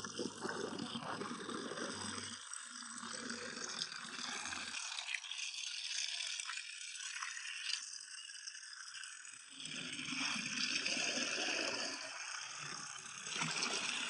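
Water running steadily from an outdoor standpipe tap, splashing into a plastic bucket and onto a concrete slab. Near the end it swells as a bucketful of water is tipped out onto the slab.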